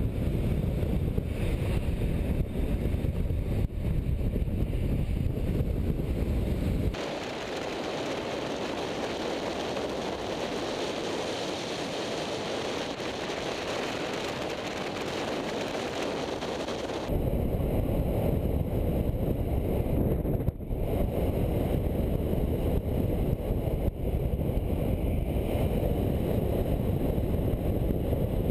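Wind rushing over the microphone of a camera carried at speed down a hill, with inline skate wheels rumbling on asphalt. About seven seconds in, the sound turns thinner and hissier for about ten seconds, without the low rumble, before the heavy rumble returns.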